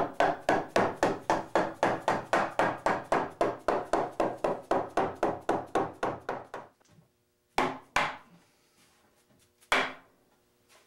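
Rubber mallet knocking a cherry breadboard end onto the tabletop's tenon to seat it: a quick, even run of about four knocks a second for nearly seven seconds, then three more single knocks.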